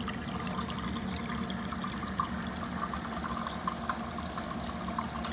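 Water trickling and splashing steadily where the EDM's flushing water runs down the electrode into the work tank, over a steady low hum, with a few faint ticks scattered through it.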